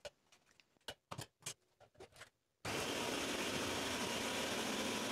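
A few light knocks and clicks, then about two and a half seconds in a Ninja countertop blender starts abruptly. It runs steadily at its highest speed, blending frozen zucchini and banana into a thick protein ice cream.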